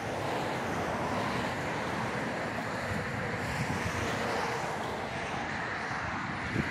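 Wind buffeting the microphone: a steady, irregular rushing noise.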